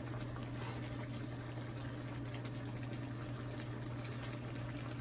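Chicken roast sauce simmering and bubbling in a frying pan while a wooden spatula stirs through it, over a steady low hum.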